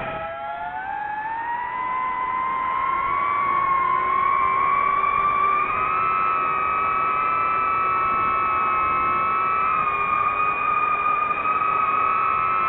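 Quadcopter drone motors and propellers whining at high speed, the pitch rising over the first two seconds and then holding high and steady, with several close pitches from the motors running at slightly different speeds.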